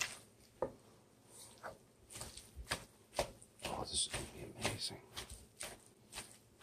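Light, irregular knocks and clicks of kitchen work, utensils and food being handled on a board or pan, about two a second with the loudest knocks around the middle.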